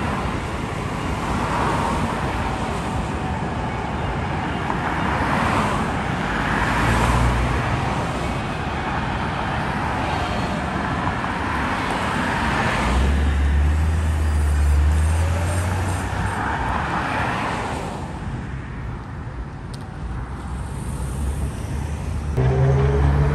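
Road traffic on a busy multi-lane street: cars swishing past one after another, with a deeper rumble from a heavier vehicle around the middle.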